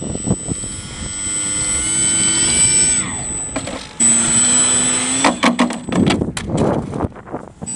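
Electric brushless motor and propeller of a homemade foam RC plane whining, the pitch climbing as the throttle opens, then dropping away about three seconds in and jumping back to full power a second later. From about five seconds in, a string of sharp knocks and clatters as the steeply banked plane hits the pavement.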